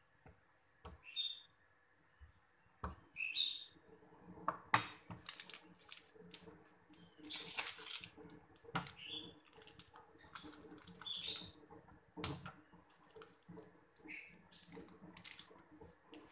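Instant noodles frying in a pan on a gas stove, with scattered crackles and clicks and short high chirps now and then.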